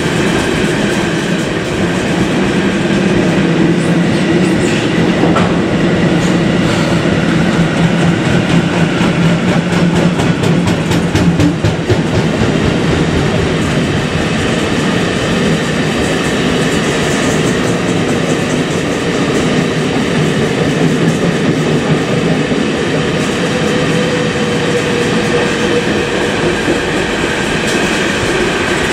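Freight train of loaded double-deck car-carrier wagons rolling past at steady speed: a continuous rumble of steel wheels on rail, with a run of wheel clicks about halfway through.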